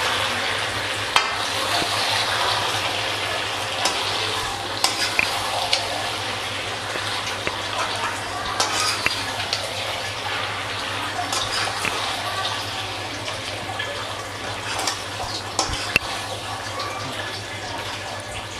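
Chilli chicken in a cornflour-thickened sauce sizzling in a kadai as it is stirred with a spatula, with scattered clicks and scrapes of the spatula against the pan.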